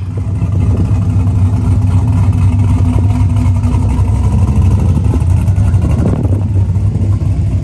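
Car engine and exhaust running at a steady low pitch, a loud even hum without clear revs.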